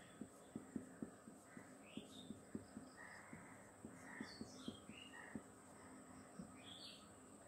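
Faint, irregular soft knocks of a marker tip on a whiteboard as words are written, about two or three a second. Birds call faintly in the background.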